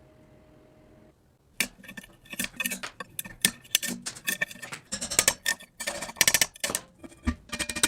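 A fast, irregular run of sharp metallic clinks and taps with a short ring to them, starting about a second and a half in after a faint hum.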